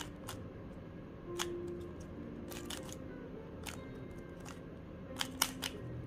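MoYu RS3M 3x3 speedcube being turned by hand: irregular sharp plastic clicks of the layers snapping round, with a quick cluster of them near the end. Quiet background music with held notes underneath.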